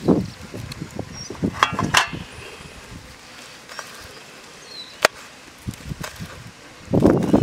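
Kitchen knife slicing green chillies on a plastic cutting board: a few sharp, irregular taps of the blade striking the board. Near the end, wind gusting on the microphone.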